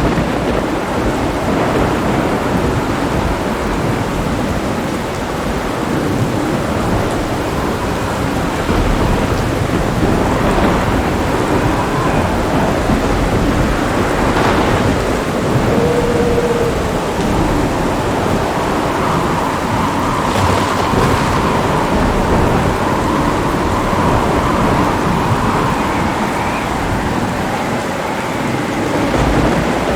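Heavy rain falling steadily with continuous low rumbling thunder.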